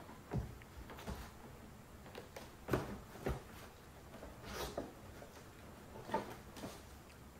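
Scattered knocks, clunks and scrapes of hands working the battery tray out of a car's engine bay, the sharpest knock a little under three seconds in.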